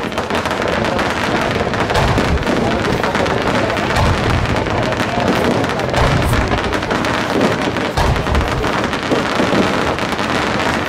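Fireworks display firing at full intensity: a dense, unbroken crackle of many small reports, with repeated deeper booms of shells bursting.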